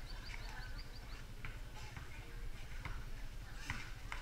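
Basketball bouncing on a concrete court, heard as a few scattered sharp knocks, over a low rumble of wind on the microphone. A small bird gives a quick run of high chirps in the first second.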